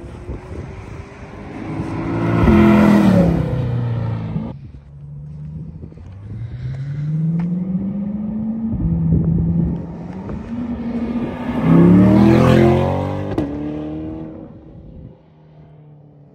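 C8 Corvette V8 with a FabSpeed X-pipe exhaust, valves open in track mode, accelerating past twice. Each time the engine note rises as the car approaches, is loudest as it passes, then falls away. The first pass breaks off suddenly about four and a half seconds in.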